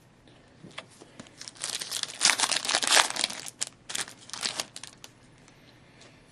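Wrapper of a 2010-11 Black Diamond hockey card pack crinkling and tearing as it is opened by hand, loudest about two to three seconds in, trailing off into a few lighter rustles.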